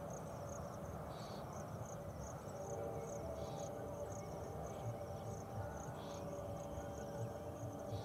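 Insects chirping in a fast, even run of short, high-pitched pulses, over the low rumble of a distant diesel train.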